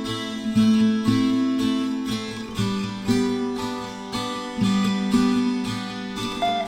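Background music: acoustic guitar strumming chords, with no voice.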